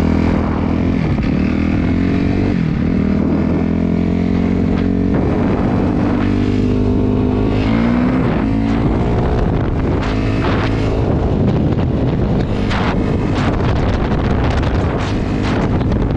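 Dirt bike engine running under the rider, its pitch rising and falling as he rides on and off the throttle, with wind buffeting the microphone in the second half.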